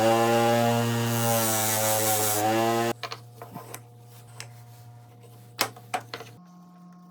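A power tool's electric motor running at a steady pitch, with a stretch of cutting or abrading hiss in the middle, then it stops abruptly. A few light wooden clicks and knocks follow, two sharper ones near the end.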